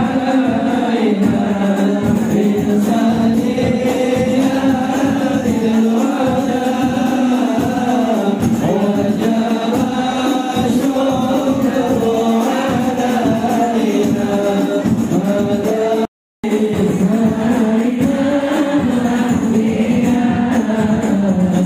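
A group of voices singing a chant-like devotional song over music. It breaks off for a split second about sixteen seconds in, then carries on.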